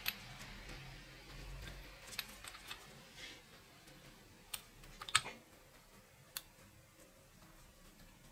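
Scattered small clicks and taps from the lever and striker parts of a rusty, opened bicycle bell being handled and worked by hand. There are about eight clicks, with the sharpest a little past five seconds in, and no ringing.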